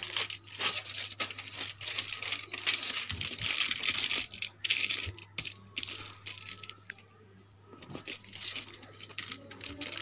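A sheet of aluminium foil crinkling and rustling as it is handled and smoothed flat by hand. The crackle thins out briefly about seven seconds in.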